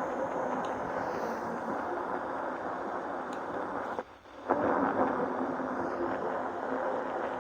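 Steady hiss of static from a radio receiver monitoring a weak broadcast, muffled with no highs, dropping out for about half a second around four seconds in.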